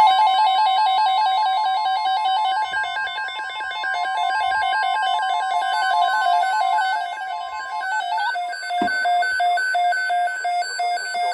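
NOAA Weather Radio alert: a steady warning alarm tone with a weather radio receiver's rapidly warbling alert tone beneath it. About eight seconds in the steady tone cuts off and the receiver's alert goes on as a loud beep repeating about twice a second.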